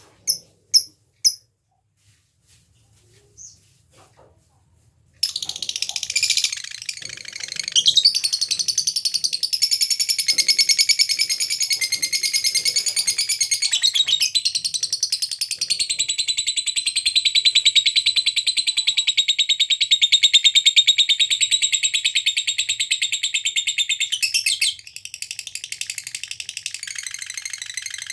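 Lovebird giving a few sharp ticking chirps ('ngetik'), then after a short pause breaking into a long, unbroken rapid high chatter ('ngekek panjang') of about twenty seconds, which carries on more softly near the end.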